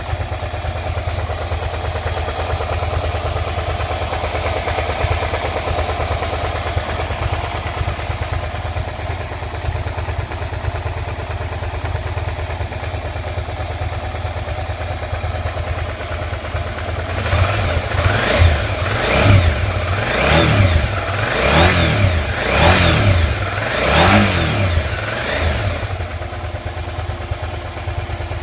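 2003 Suzuki SV650S's 645 cc 90-degree V-twin idling, with a knocking noise that the owner questions as normal after the bike stood for five years. About two-thirds of the way in, the throttle is blipped about seven times in quick succession, the revs rising and falling each time, before the engine settles back to idle.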